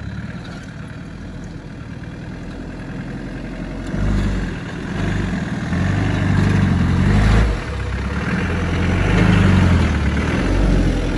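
Land Rover Discovery's 300Tdi 2.5-litre four-cylinder turbodiesel working as the truck crawls through deep ruts on a dirt track, heard from outside. It runs low and steady at first, then gets louder from about four seconds in, the engine note rising and falling in surges as the truck comes close.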